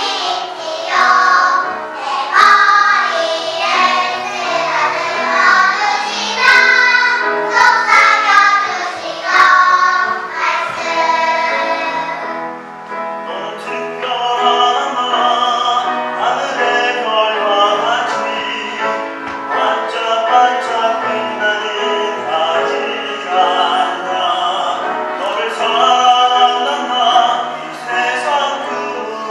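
Children's choir singing a song in concert, the sung voices shifting to steadier, more sustained singing about halfway through.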